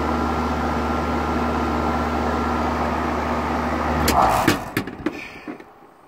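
Outdoor central air conditioner condenser unit running, its compressor and fan giving a steady electrical hum with a thin whine. About four seconds in come a few clicks and knocks, and the hum cuts off and dies away as the unit stops.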